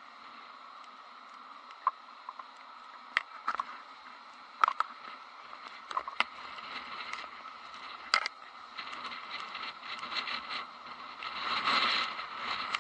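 Muffled noise through an action camera's waterproof housing as it is carried about, with a string of sharp knocks and taps from the housing being handled, and a louder rush of noise near the end.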